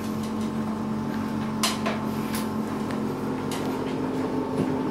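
Handling noises on a stainless-steel veterinary table as an anaesthetised dog is turned over and its anaesthetic tubing disconnected: a few sharp clicks and knocks spread through, over a steady low machine hum.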